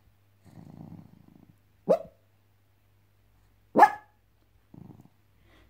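Small dog barking and growling in its sleep while dreaming: first a low growl, then two short sharp barks about two seconds apart, the second the louder, and a brief low grumble near the end.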